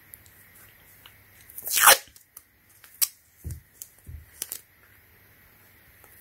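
Masking tape pulled off the roll and torn: one loud rip just before two seconds in, followed by several light clicks and crinkles as the strip is handled.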